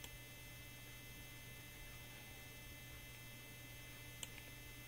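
Faint steady electrical hum with a thin high whine above it, and a single faint click about four seconds in.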